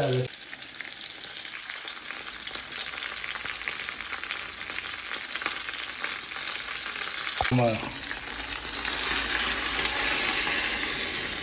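Fish and vegetables frying in oil in a pan, a steady sizzle that grows louder about two-thirds of the way in. A single sharp knock just before it swells.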